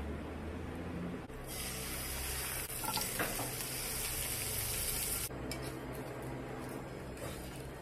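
Sauce-brushed sea bass fillets sizzling in a frying pan: a steady frying hiss starts about a second in and cuts off suddenly about five seconds in.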